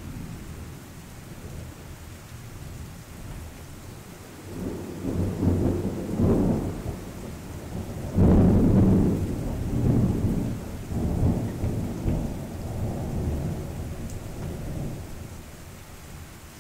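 Thunder rolling over steady rain: a low rumble builds about four seconds in, peaks with a sharper clap about halfway through, then rumbles on in several waves and fades near the end.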